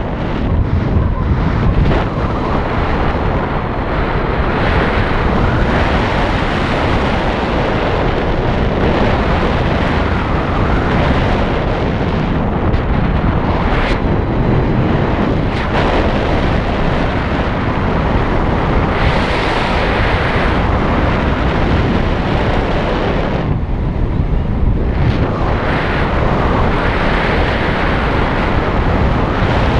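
Wind rushing over the microphone of a moving motorcycle, a steady loud roar of wind and road noise that eases briefly about three-quarters of the way through.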